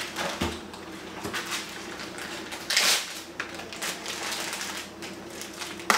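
Plastic food-storage bag rustling and crinkling as it is handled, with a few light clicks and knocks; the loudest rustle comes about three seconds in.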